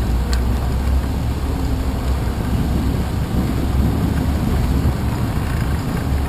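Steady wind rumble and road noise from a bicycle riding over wet pavement, picked up by a handlebar-mounted camera.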